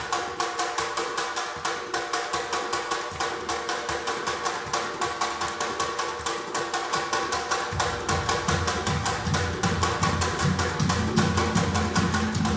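Live improvised ensemble music: a fast, even percussive pulse of about five strokes a second over held tones, with a low bass part coming back in about eight seconds in.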